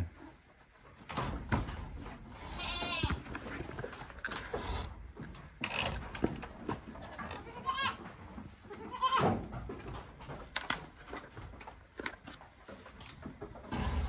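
Goats bleating in a wooden pen: about four separate wavering bleats, with rustling and small knocks in between.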